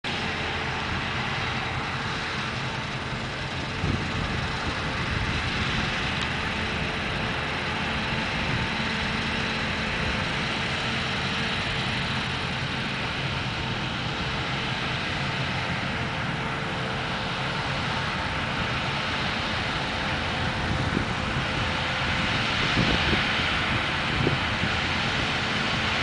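Claas Lexion combine harvester on Terra Trac tracks running under load while cutting wheat: a steady mechanical drone of engine and threshing machinery with a constant whine, growing a little louder near the end.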